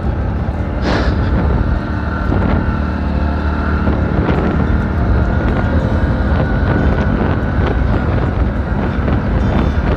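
Hero HF Deluxe motorcycle's small single-cylinder four-stroke engine running steadily as the bike rides along a rough sandy track. Wind buffets the microphone, and short knocks from the bumps come through now and then.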